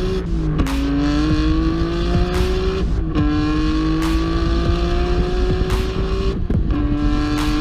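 Twin-turbo car engine pulling hard under acceleration, its pitch climbing steadily through each gear, with upshifts dropping the pitch about 3 seconds and 6.5 seconds in.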